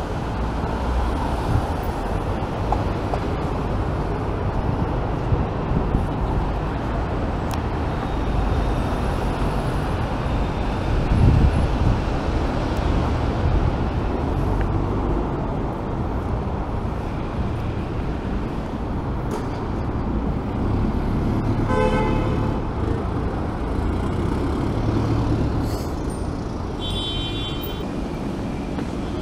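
Steady rumble of city road traffic, with a car horn sounding once briefly about three-quarters of the way through and a shorter, higher-pitched tone near the end.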